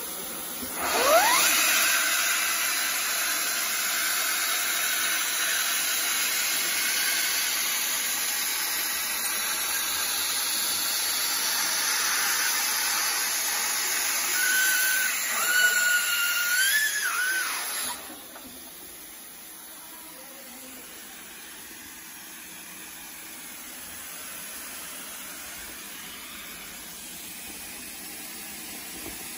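Hot-air PVC film welding machine starting up with a rising whine, then a loud steady rush of hot air from its blower nozzle while the film is welded, with a wavering whine briefly near the end of the run. It cuts off suddenly, leaving a quieter steady machine hum.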